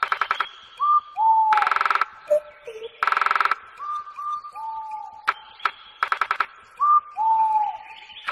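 A bird singing: short clear whistles that curve downward in pitch, alternating with loud buzzy rattles, several times.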